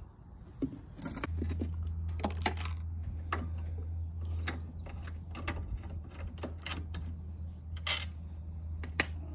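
Metal hand tools and parts clinking and clicking in quick, irregular strikes, with a steady low hum that starts about a second in.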